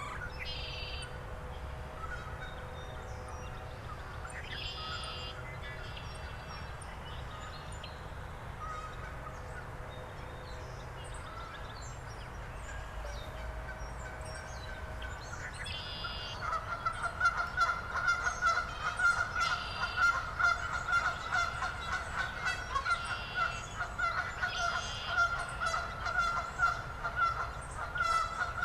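Geese honking in a fast, repeated series that starts about halfway through and grows loud, over a steady low background rumble; before that, other birds call now and then.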